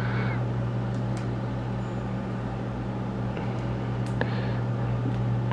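A steady low hum from a running machine or motor, unchanging throughout, with a few faint clicks.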